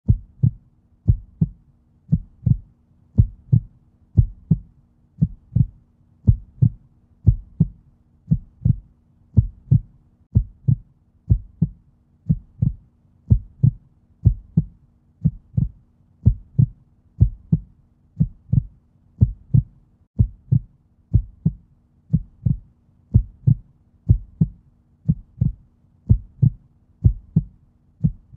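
Heartbeat sound effect: low, muffled thumps in a slow, steady rhythm, about one beat a second.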